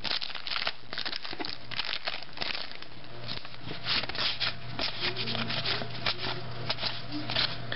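Foil trading-card pack wrapper crinkling and glossy cards sliding against each other as they are flipped through by hand, a string of irregular crackles.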